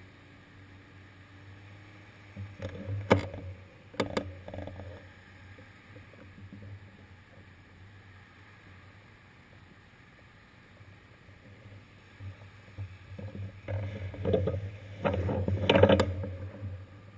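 Muffled road traffic around a stopped bicycle, cars idling close behind: a low steady hum, with louder rumbling and a few sharp knocks about three seconds in and again near the end.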